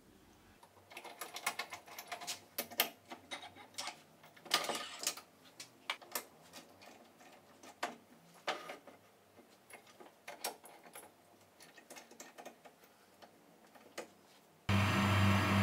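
Irregular clicks and metallic knocks as a wooden blank is reseated in a metal lathe scroll chuck and the chuck is tightened with its T-handle key. Near the end the lathe's steady running hum comes in abruptly and is the loudest sound.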